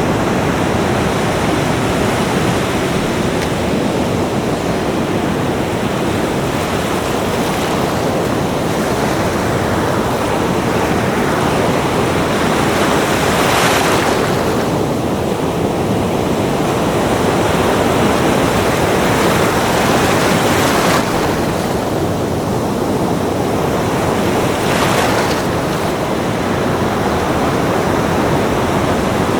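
Ocean waves breaking on a beach: a continuous rush of surf, with a few stronger waves hissing up the sand about halfway through and again near the end.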